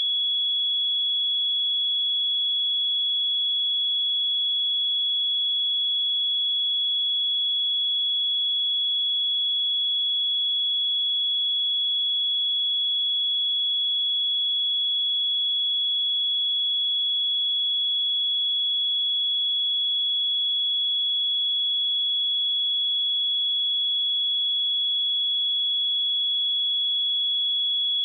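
Pure 3368 Hz sine-wave test tone, a single steady high-pitched note held at constant pitch and level.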